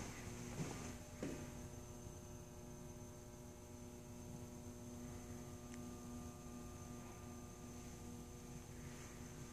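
Steady electrical mains hum with a faint high-pitched whine above it, and a couple of soft knocks about a second in.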